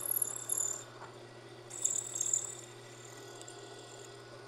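Vertical milling machine running with a steady hum while an extended-length quarter-inch end mill bores into an aluminum clutch basket casting. The cut gives two spells of high-pitched squeal, one at the start and one about two seconds in.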